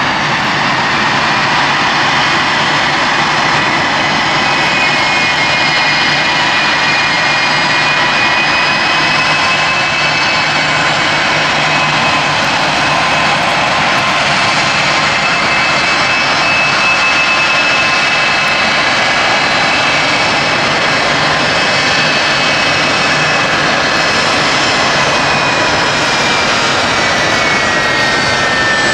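A Boeing C-17 Globemaster III's four turbofan jet engines running at taxi power: a steady, loud jet noise with several high whines that slide down in pitch near the end.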